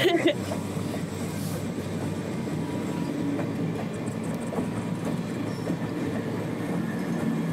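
A train of old-style passenger coaches with a blue electric locomotive rolling past, a steady rumble of wheels on the rails.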